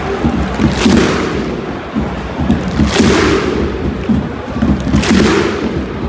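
Large stadium crowd of football supporters singing a chant together, loud and close, with a surge of massed voices about every two seconds.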